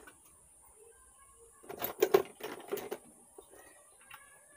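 A quick cluster of clicks and clatter, a bit over a second long, from small parts and tools being handled on a workbench, with a couple of faint ticks near the end.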